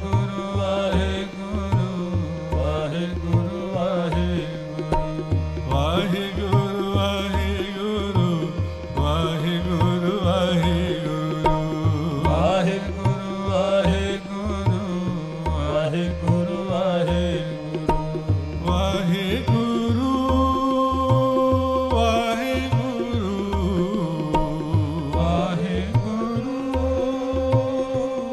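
Sikh kirtan: two harmoniums hold a steady chord while a tabla pair keeps an even rhythm under sung gurbani.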